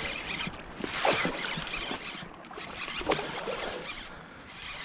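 Water sloshing and splashing around a float tube as a hooked bass is worked out of thick grass, with a couple of sharp knocks.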